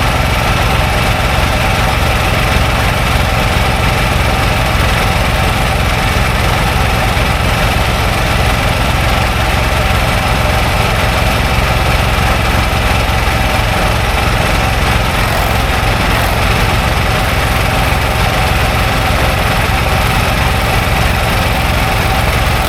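Engine running steadily at a constant speed, with a dense low pulsing and no change in pitch.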